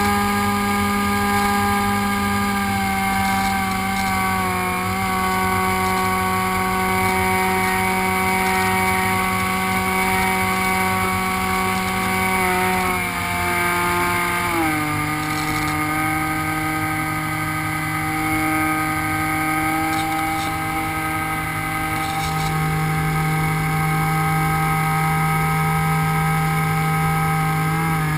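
Electric motor and propeller of an HK Raptor RC plane running steadily in flight, a droning hum heard from the onboard camera. Its pitch drops slightly about halfway through and then holds.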